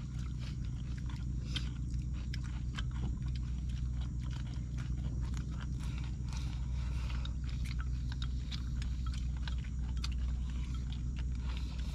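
People chewing and eating, with irregular small clicks and smacks over a steady low hum.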